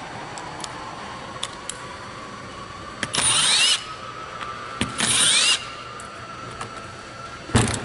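Cordless driver with a long bit spinning up in two short bursts, about two seconds apart, each with a rising whine, backing bolts out of the top of the nailer's housing. Light handling clicks throughout and a sharp knock near the end.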